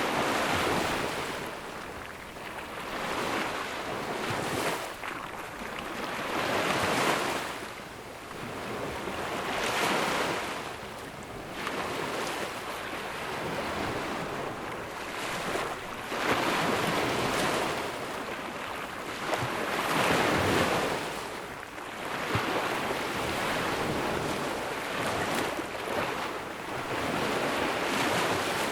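Ocean waves breaking and washing onto a sandy beach, the surf swelling and ebbing every few seconds.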